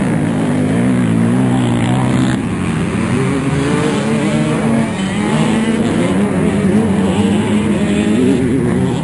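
Several motocross dirt bike engines running at once on the track, their pitch rising and falling as the riders rev and change gear.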